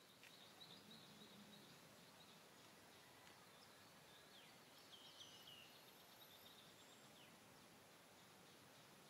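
Near silence: faint outdoor ambience, with a few faint high chirps, the clearest a short falling cluster about five seconds in.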